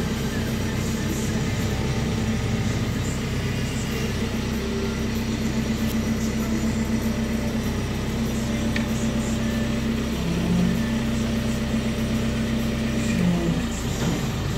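JCB 535-140 Loadall telehandler's diesel engine running steadily under hydraulic load as the telescopic boom extends and lowers a pallet. The engine note shifts briefly about ten seconds in and again near thirteen seconds.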